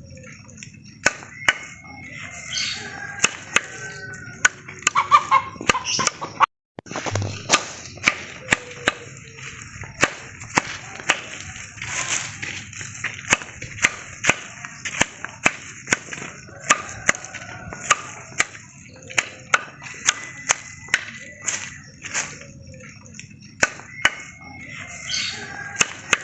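Axe blows chopping into wood, sharp irregular strikes about one or two a second, with birds calling in the background.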